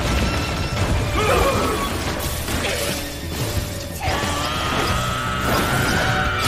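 Anime battle soundtrack: dramatic background music under action sound effects of crashing, shattering debris and the mechanical whir of omni-directional mobility gear, with a long wavering high note from about four seconds in.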